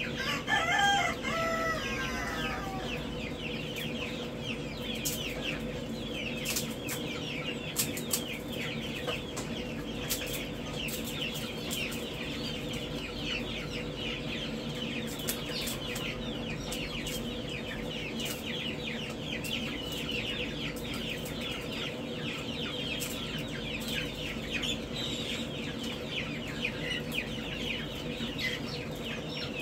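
Many baby poultry chicks peeping nonstop in brooders, a dense chorus of short high chirps. One louder, lower call stands out about a second in, over a steady low hum.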